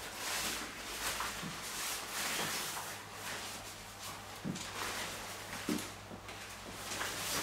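Scissors snipping dry hair and a comb working through it during a dry trim: irregular crisp snips and rustles, with a few soft low knocks.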